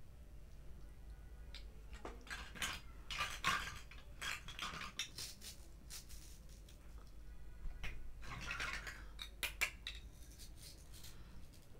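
Hard plastic toy play-food pieces being handled, pulled apart and pressed together: clusters of light clicks, clacks and short scrapes, busiest around two to five seconds in and again around eight to ten seconds.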